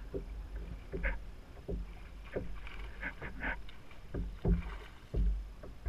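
A kayak on the water: irregular small splashes and knocks against the hull, over a low wind rumble on the microphone.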